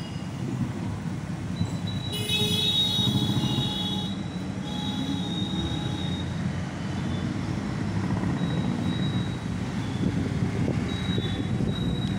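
A bus running through traffic: a steady low engine and road rumble from inside the cabin. About two seconds in, a loud high squeal with several tones lasts about two seconds, and short fainter squeaks come and go after it.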